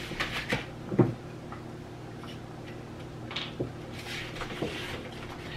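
Handling noises on a kitchen counter as a hot sauce bottle is picked out from among other bottles and packages: a sharp knock about a second in, then lighter clicks and rustles.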